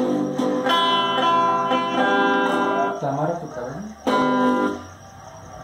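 Electric guitar strumming chords, ringing for about three seconds, then a brief pause and one more strummed chord about four seconds in that dies away.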